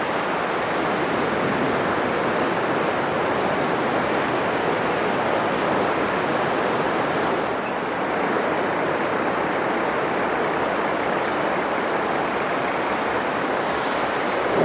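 Atlantic Ocean surf breaking on a sandy beach: a steady rushing wash of waves, with a brighter hiss near the end as another wave breaks.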